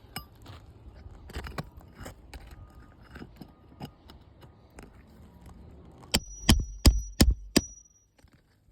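Hammer striking a steel pry bar five times in quick succession, with a high metallic ring, working roofing nails loose under an asphalt shingle. Before the strikes, light clicks and scraping of the tool against the shingles.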